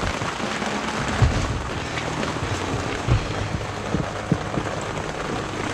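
Steady rain falling on a plastic tarp, with a few short knocks scattered through it.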